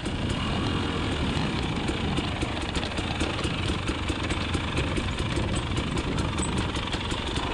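KTM 300 XC TPI single-cylinder two-stroke dirt bike engine running steadily, heard from on board the bike.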